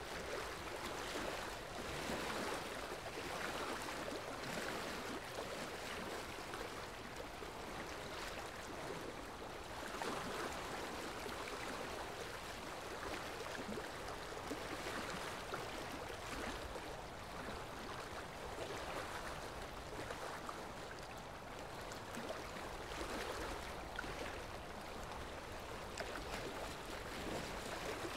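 Steady rushing of running water, swelling and easing irregularly, with no pitched sounds in it.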